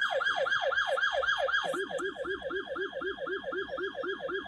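Siren wail in quick falling sweeps, about four a second, like a yelp-style electronic siren. A second, lower sweeping tone joins in about a third of the way through.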